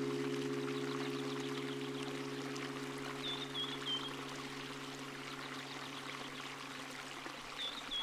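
Steady running water, like a stream or waterfall, under a sustained drone of ambient music that fades out by about three-quarters of the way in. A short series of four high chirps comes twice.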